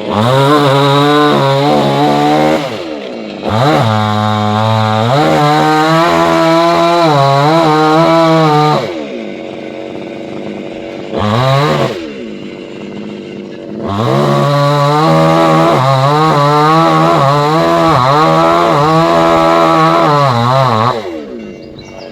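Chainsaw at full throttle, its pitch wavering as it cuts under load. It drops to idle about nine seconds in, revs once briefly, then runs at full revs again before falling back near the end.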